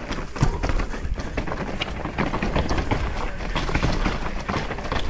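Mountain bike descending a rough dirt trail: a dense, irregular clatter of the bike and tyres over rocks and roots, over a constant low rumble.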